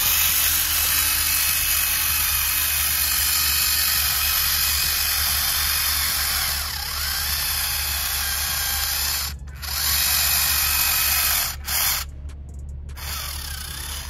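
Electric gear motor of a homemade radio-controlled toy tractor whining under load as it pulls a weighted sled, cutting out briefly twice in the last few seconds.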